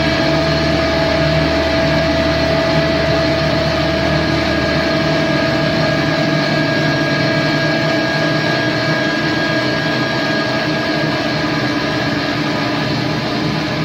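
Heavy drone-doom music: a dense wall of sustained distorted tones held steady, with no beat or break. The deepest low end drops away about five seconds in.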